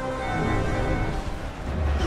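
Film score music: sustained chords held over a deep low rumble.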